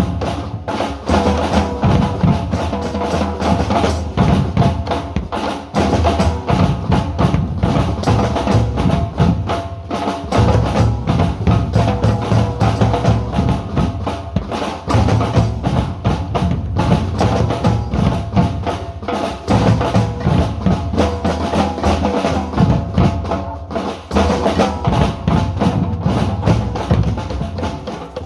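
A group of drummers playing together in a steady, driving rhythm with deep drum strokes throughout, with no pause.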